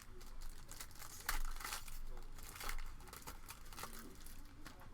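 Crinkling and tearing of a trading-card pack wrapper as it is handled and opened, a run of irregular sharp crackles, loudest in the first couple of seconds.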